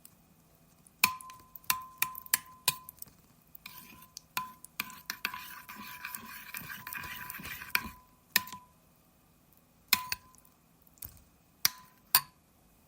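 Glass ketchup bottle being tapped, about nine sharp knocks, each ringing briefly with the bottle's tone. In the middle comes a rough, crackly noise lasting about three seconds, typical of ketchup sputtering out of the bottle.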